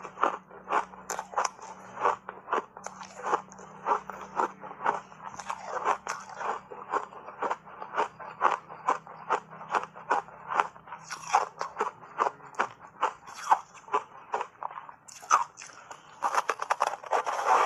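Frozen ice coated in matcha powder being bitten and crunched between the teeth, in sharp cracks about two to three a second. A denser run of crackling comes near the end.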